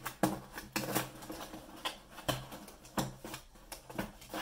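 Small cardboard box being handled and its flap opened by hand: a string of irregular sharp taps, scrapes and rustles of cardboard.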